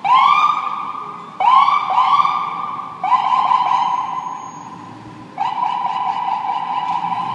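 Emergency vehicle siren sounded in short blasts, five in all, each sweeping quickly up to a steady high tone and then trailing off.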